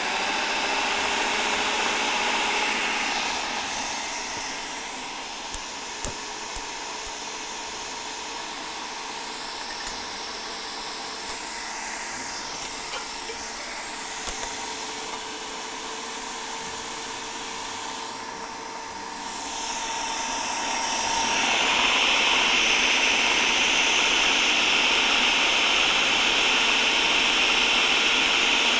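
Electric food processor's motor running steadily with a whine, blending thin batter smooth to get rid of small lumps. It drops in level a few seconds in and comes back louder for the last third.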